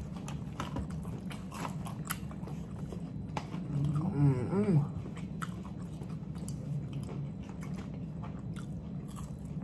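Close-up chewing and crunching of breaded fried chicken livers, many small crisp crunches in an uneven run. A short hummed voice sound comes about four seconds in, over a steady low hum.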